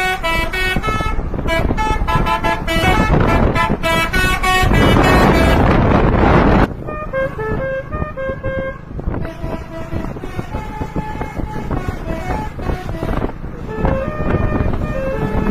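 Telolet multi-tone horn on a coach bus playing rapid tune-like sequences of notes, each note held about a quarter second. A loud rushing noise builds from about four and a half seconds in and cuts off suddenly, after which the horn melodies go on more quietly.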